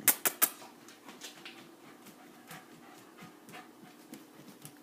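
A dog panting in short quick breaths, with three sharp clicks or knocks right at the start.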